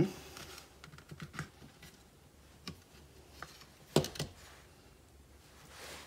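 Plastic housing of a power strip being pried apart by hand: scattered light clicks and plastic rattles, with a sharper snap about four seconds in and a short scrape near the end as the inner section slides out.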